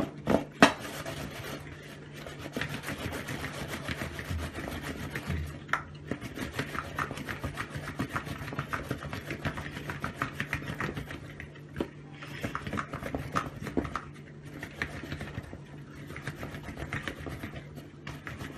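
Small boiled potatoes tumbling and knocking inside a plastic container as it is shaken to coat them in spices: a continuous, irregular run of soft knocks and rubbing, with a faint steady low hum underneath.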